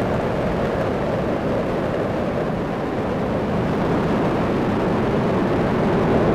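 Space Shuttle Discovery's two solid rocket boosters and three liquid-fuel main engines firing during ascent: a steady, dense rocket rumble with most of its weight low, growing slightly louder near the end.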